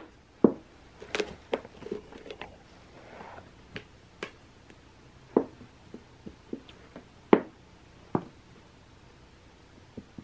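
A cat pawing and batting at small toys inside a curved artificial-grass cat scratcher: about a dozen scattered soft knocks and taps at irregular intervals, a few of them sharper.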